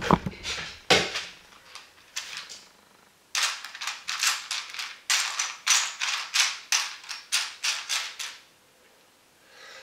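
Loose plastic LEGO pieces clicking and clattering against each other and a plastic tray as a finger stirs through them, a quick run of sharp clicks about three a second starting about three seconds in.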